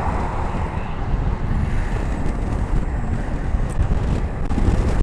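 Motorcycle riding on the highway, its engine and road noise under heavy wind buffeting on the microphone.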